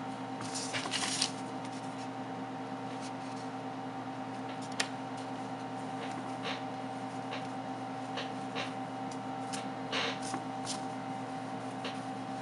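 Cloth rubbing over the glass back of a Samsung Galaxy S9 as it is wiped clean with alcohol, with faint scuffs and light taps. Under it runs a steady electrical hum.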